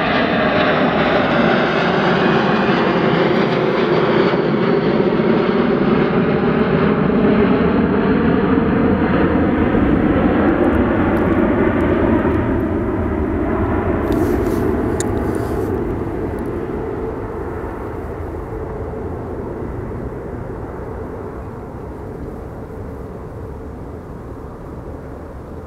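Airbus A340-300 with four CFM56 turbofan engines at climb power, passing close overhead. A loud jet roar with gliding, falling tones as it goes by. The high-pitched hiss drops away about halfway through, and the roar then fades steadily as the aircraft climbs away.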